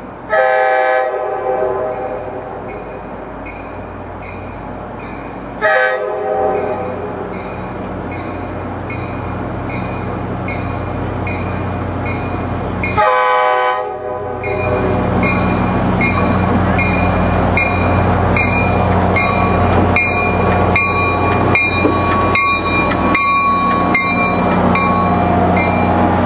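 F40PH-3C diesel locomotive sounding three blasts of its air horn as it approaches, the last one loudest. From about halfway through, its diesel engine rumbles and its wheels click over the rail joints as it pulls in. A bell dings in a steady beat throughout.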